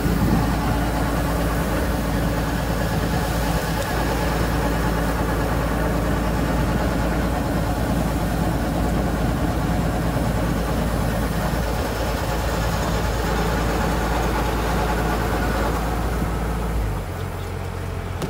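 Combine harvester engine running steadily, a loud low hum, while the machine unloads threshed rice into sacks. Near the end the engine note changes and the sound gets somewhat quieter.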